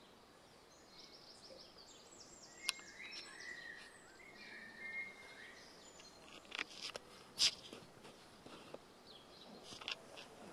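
Small birds chirping in quick series of short high notes over faint outdoor background noise, with a few sharp clicks, the loudest about seven and a half seconds in.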